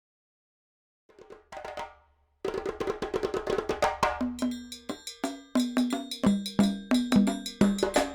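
Music starting up: a short fade-in about a second in, then from about two and a half seconds a rapid, upbeat percussion track of wood-block-like clicks over pitched notes and a bass line.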